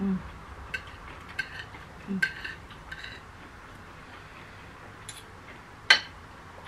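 Metal cutlery clicking and scraping on ceramic plates during a meal, in scattered light clinks with one sharp clink about six seconds in.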